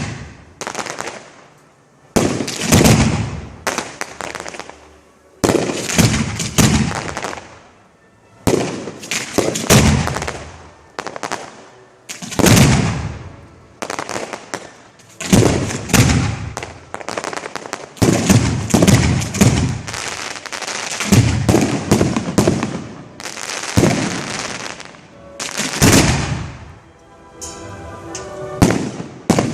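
Professional fireworks display heard close to the firing site: shells launching and bursting with a sharp bang every couple of seconds, each one dying away in rumble and crackle.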